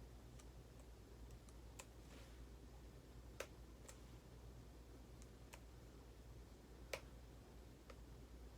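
Faint, irregular clicks, about seven of them, each short and sharp, the loudest one nearly two-thirds of the way through, over a steady low hum.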